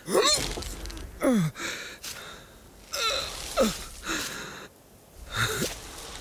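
Sheep character's breathy huffs and short grunts, about five of them, each a vocal slide that mostly drops in pitch.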